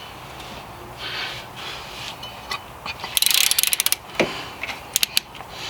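Ratchet wrench clicking in a quick run of about a second as it turns a rear hub assembly bolt, followed by a single knock and a few sharp metal clicks near the end.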